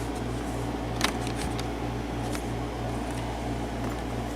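A steady low hum that pulses slowly, about two to three times a second, with a few light metal clicks of lock-picking tools being handled at a padlock; the sharpest click comes about a second in.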